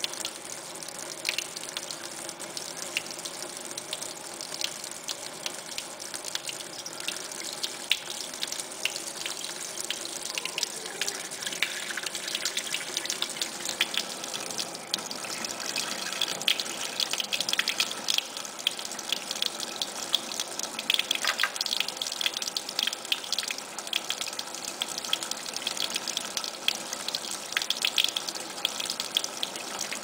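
Kitchen faucet running a thin stream into a stainless-steel sink, with irregular splashes and spatters as a cat's paw swats through the stream. The spattering grows busier and louder about halfway through.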